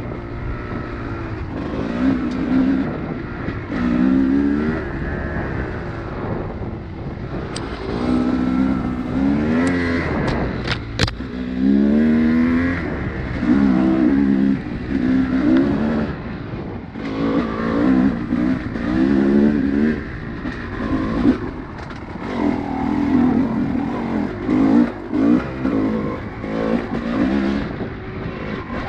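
Small off-road vehicle engine being throttled on and off again and again, its pitch rising and falling every second or two, over a steady low rumble of wind and riding noise. There are a few sharp clicks about ten seconds in.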